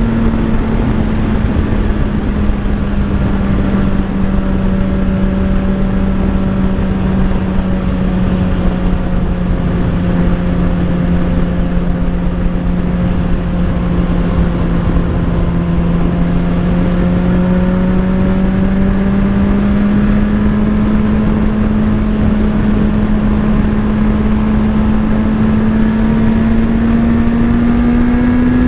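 Sport motorcycle engine running at a steady cruise, its pitch sagging slowly and then climbing again near the end, over wind and road noise.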